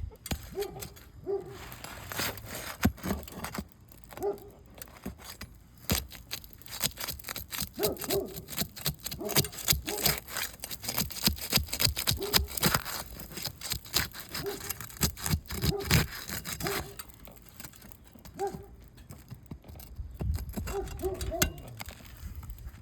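Asphalt shingle being worked loose and its fasteners pulled: many irregular sharp taps, clicks and scrapes of metal tools on the shingle and nails, with short squeaks scattered among them.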